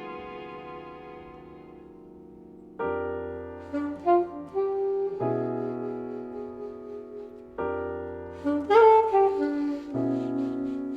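Alto saxophone and piano playing a slow contemporary jazz-classical piece with a string trio. A held chord fades for the first few seconds, then piano chords are struck and the saxophone plays short phrases; a second piano chord about eight seconds in brings a quick saxophone run.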